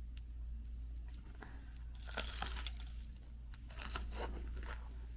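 Crunching bites and chews of crispy deep-fried ukoy, Filipino shrimp and vegetable fritters, close to the microphone. The crunching comes in two clusters, about two seconds in and again about four seconds in.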